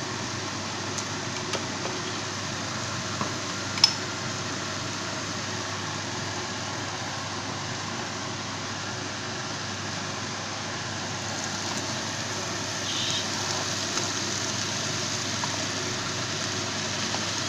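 Cabbage and smoked ribs sizzling in a frying pan with a steady hiss, and one sharp click about four seconds in.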